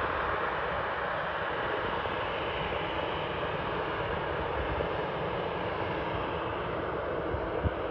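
Boeing 737-800's CFM56 jet engines running at taxi power, a steady rushing hiss that eases slightly toward the end.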